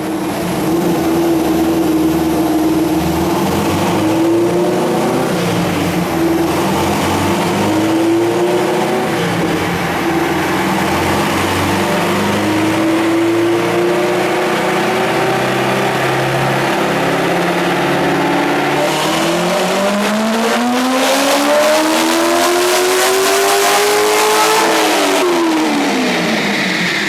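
Supercharged Chevrolet Corvette V8 running on a chassis dyno. The engine note steps up and down in pitch for the first part. About 19 s in, a long full pull begins, the revs climbing steadily for about six seconds before the throttle closes and the revs fall quickly, with a hiss rising as they drop.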